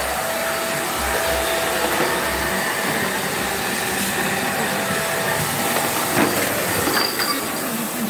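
Small corded 2-in-1 stick vacuum cleaner running: a loud, steady rush of air over a motor whine, with a couple of brief knocks about six and seven seconds in.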